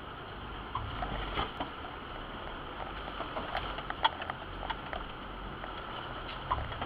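Four-wheel-drive vehicle driving over a rough, rutted dirt track, heard from inside the cab: a steady low engine rumble with scattered knocks as it jolts over the ground.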